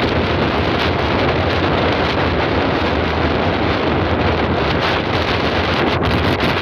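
Loud wind buffeting on the microphone of a phone at the open window of a moving car. Under it is the steady rumble of the car's tyres on a cobblestone road.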